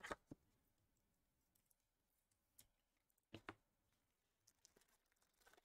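Near silence broken by a few faint, short clicks and taps of trading cards being handled and set down. There is a pair of clicks at the start and another pair about three and a half seconds in.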